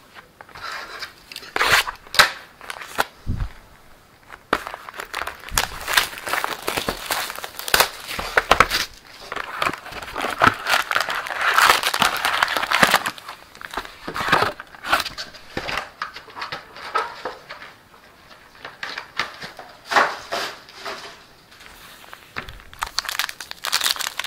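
Plastic wrap and foil card packs crinkling and tearing as a box of baseball trading cards is opened, in uneven bursts of rustling with sharp clicks, busiest about halfway through.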